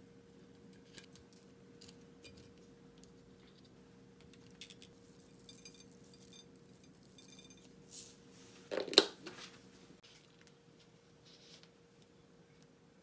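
Metal kitchen tongs clicking lightly against a ceramic plate as pieces of spicy marinated crab are set down, a scatter of small ticks, then one louder clatter of dishware about nine seconds in, under a faint steady hum.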